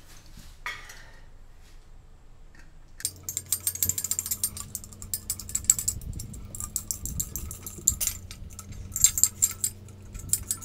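Ratchet wrench clicking in quick runs, with metal clinks and rattles, as the bolts at the centre of a cast-iron brake drum are tightened. The clicking starts about three seconds in.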